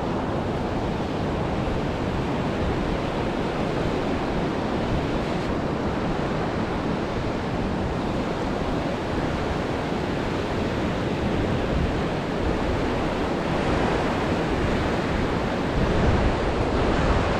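Ocean surf breaking and washing onto the beach: a continuous wash of noise that swells slightly near the end.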